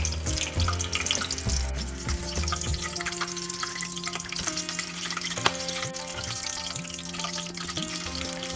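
Hot oil sizzling and crackling around green chillies held in a wire strainer, with one sharp pop about five and a half seconds in. Background music plays over it.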